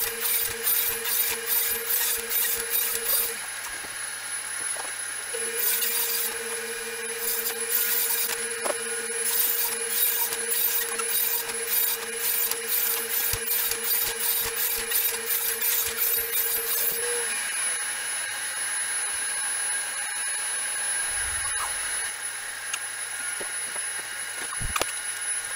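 Ridgid R4520 table saw rip-cutting plywood sheets, its blade running through the wood with a steady whine and rapid high ticking. The cut pauses briefly a few seconds in and stops about two-thirds of the way through.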